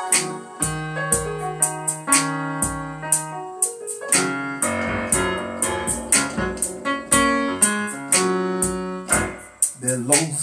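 Instrumental break of a gospel song: keyboard playing piano-voiced chords and runs over drum hits.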